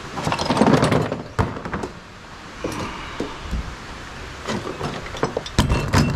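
Small scrap metal pieces being picked through by gloved hand in a ribbed steel vehicle tray, clinking and knocking against the metal. The knocks are irregular, with a cluster about half a second in and another near the end.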